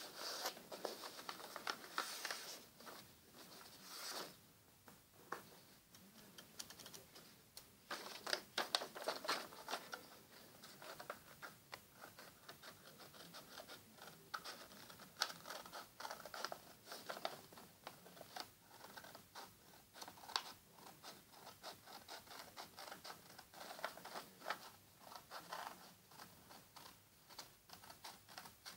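A sheet of paper being pressed and creased by hand, then scissors snipping and sliding through folded paper, with irregular scraping and rustling of the paper.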